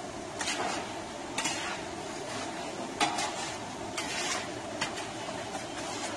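A metal spatula scrapes and stirs chopped peppers and tomatoes coated in tomato paste around a large stainless steel pan, in several irregular strokes, over a steady sizzle of frying.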